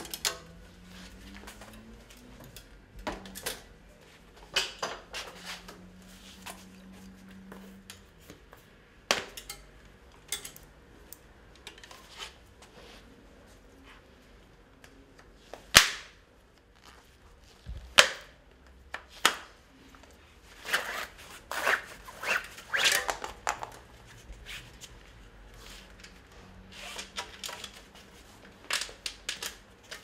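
Irregular clicks, snaps and knocks from a bicycle wheel and tyre being worked by hand during a fast tyre change. Two sharp cracks about halfway through are the loudest.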